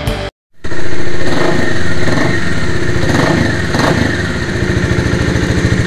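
Bajaj Dominar 400's single-cylinder engine running through an aftermarket copy exhaust with its dB killer still fitted, loud and steady with an even pulsing beat. It comes in abruptly after a brief snatch of rock music cuts off.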